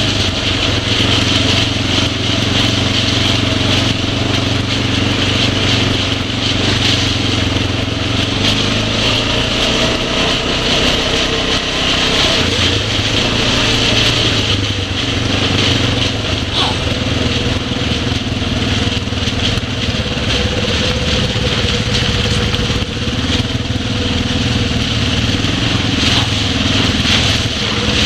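ATV engine running at a steady, even pitch throughout.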